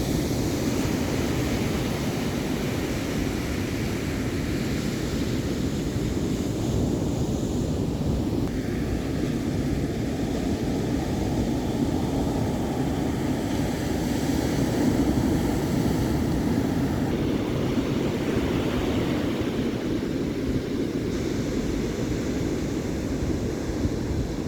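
Pacific Ocean surf giving a steady, low roar of breaking waves, with no separate wave crashes standing out.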